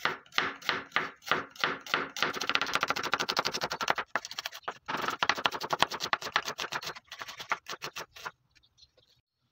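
Kitchen knife slicing an onion into half-rings on a bamboo cutting board, the blade knocking on the wood with every stroke. Spaced cuts at first, then fast rhythmic runs with two short pauses, slowing and stopping about a second before the end.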